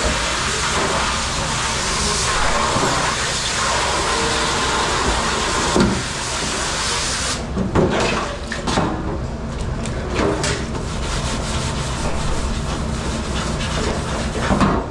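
Water spraying hard and steadily in a commercial dish pit for about seven seconds, then cutting off; after it, scattered knocks and clatters of dishes and pans being handled.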